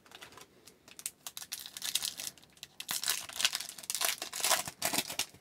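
Foil-lined Upper Deck hockey card pack wrapper crinkling and tearing as it is ripped open by hand, the crackling busiest and loudest in the second half.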